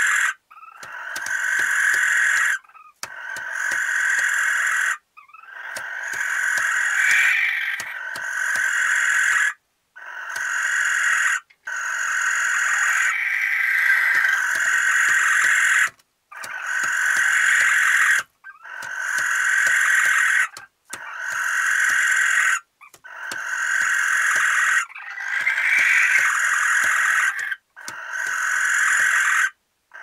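Barn owl giving long rasping, hissing calls over and over, a dozen or so in a row with short gaps, each swelling in loudness and then cutting off sharply.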